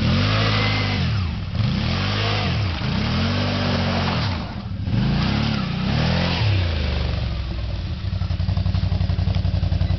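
Quad bike (ATV) engine revved up and down about five times, with its tyres churning through slush, then dropping back to a steady, pulsing idle for the last couple of seconds.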